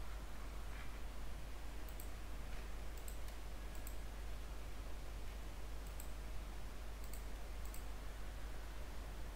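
Computer mouse clicking: about eight short, sharp clicks scattered through, several in quick pairs, over a steady low hum and hiss.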